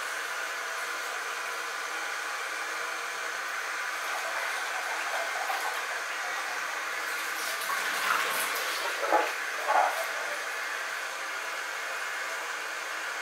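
Water running steadily into a pan of acorns, refilling it with fresh water for another boil to draw out the tannins. Twice, about two-thirds of the way through, it briefly gets louder.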